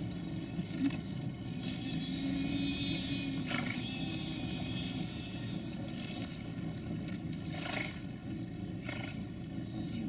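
Giant otters calling in alarm at a jaguar on the bank: a series of short, sharp snorts and barks, with one longer drawn-out call from about two to five seconds in.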